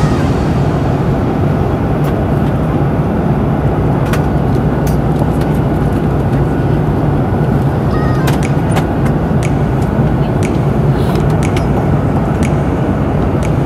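Steady cabin noise of a jet airliner in cruise, a constant low rumble and rush, with a few light clicks and taps from a plastic cup and napkin being handled close by.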